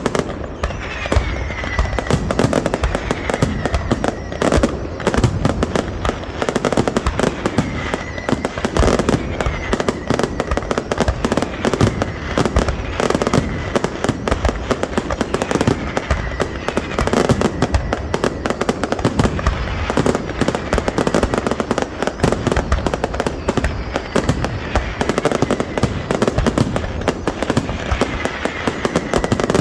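Fireworks display firing a dense, continuous barrage of bangs and crackles, with short falling whistles every few seconds.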